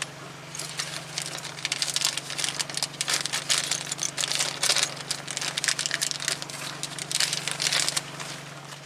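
A small plastic parts bag crinkling and rustling as it is handled and rummaged, with dense irregular crackles that die down near the end, while the ball joint's snap ring is taken out of it.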